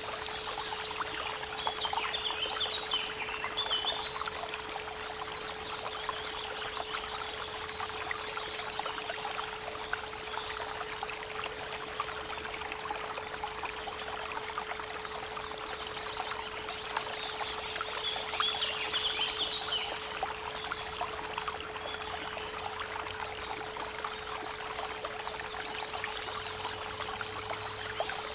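Creek water running steadily under a constant 432 Hz pure tone, with birds singing in two bouts of chirps, about a second in and again around seventeen seconds in.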